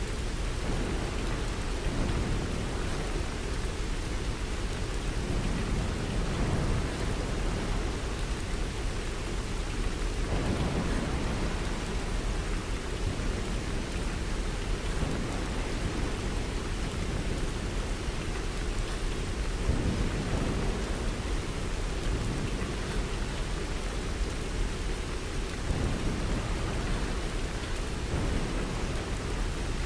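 Steady rain falling, with low rumbles of thunder swelling a few times.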